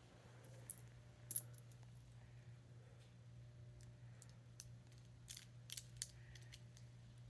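Scattered small plastic clicks and clinks of Lego bricks being handled and pressed together, the sharpest about a second and a half in and a quick run of them in the second half, over a steady low hum.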